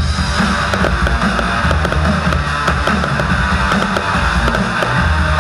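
Loud rock music with a steady, driving beat.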